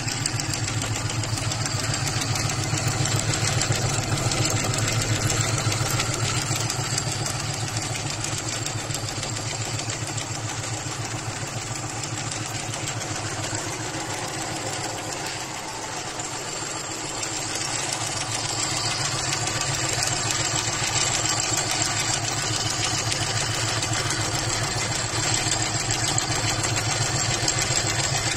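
Industrial aari embroidery machine running steadily as it stitches a looped cord pattern, its needle making a fast, even mechanical clatter that dips briefly in level near the middle.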